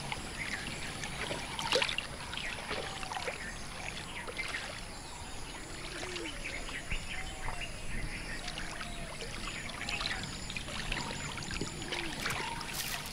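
Water splashing and lapping in a shallow, weedy pond, with scattered short bird chirps over the top.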